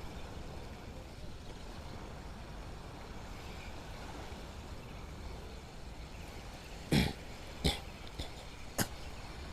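A low, steady rumble, then four sharp knocks close together near the end, the first the loudest.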